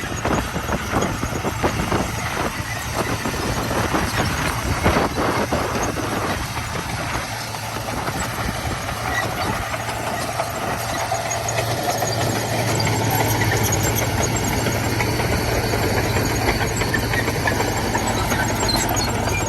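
Komatsu D41P bulldozer's diesel engine running while it works gravel, with clattering and scraping through the first several seconds, then a steadier engine note that grows louder about twelve seconds in.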